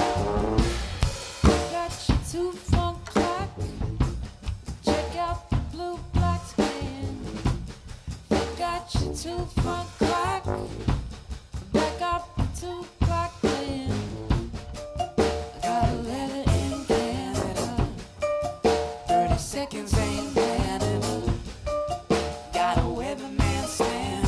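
Live band playing an instrumental passage without vocals: a drum kit keeps a busy beat with snare and bass-drum hits under short melodic notes from the band.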